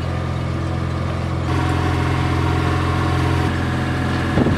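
A sailing yacht's engine running steadily while the boat motors along, a low even hum with no change in speed.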